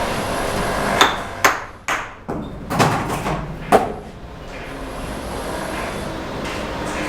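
Sharp knocks and taps of a steel trowel on cement brick and mortar, about five in quick succession in the first half, some with a short metallic ring, over a steady background hiss.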